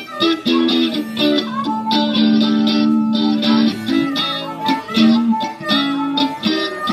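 Live blues: an electric guitar and an amplified harmonica played through a microphone. The harmonica holds long notes with short bends over the guitar's repeated chords.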